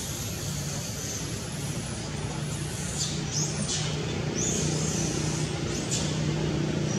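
Steady outdoor background of a low motor-vehicle hum, with several short high chirps that rise and fall, starting about two seconds in.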